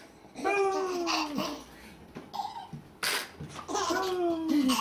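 A young baby laughing: two long high-pitched laughs, one just after the start and one near the end, each sliding slowly down in pitch, with a short breathy burst just before the second. These are among her first real laughs.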